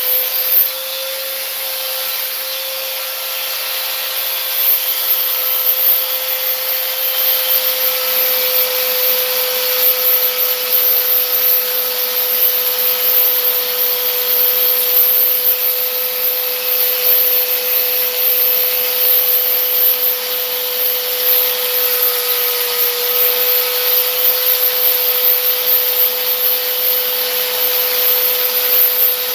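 Electric sander running steadily and sanding down filler on a fiberglass door repair, a constant whine over the grinding hiss of the abrasive. The pitch dips briefly about two-thirds of the way through.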